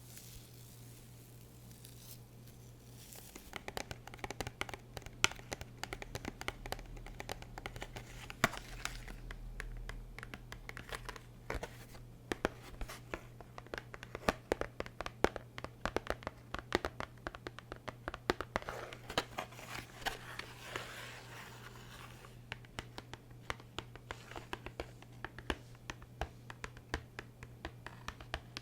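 Close-miked scratching and crinkling of an object held near the microphone: quiet at first, then from about three and a half seconds in a dense, irregular run of sharp scratches and clicks, over a steady low hum.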